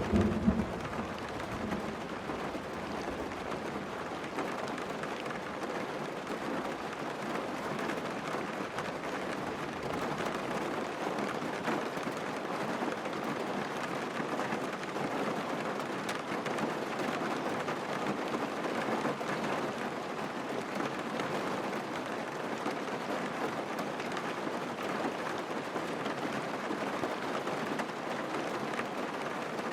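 Steady hiss of heavy rain. A low rumble of thunder dies away in the first second or so.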